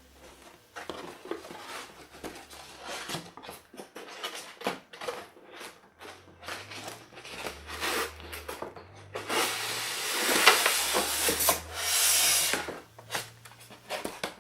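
A cardboard toy box being opened and its styrofoam packing handled: irregular rustles, small knocks and scrapes, then a longer, louder stretch of rubbing and scraping from about nine seconds in.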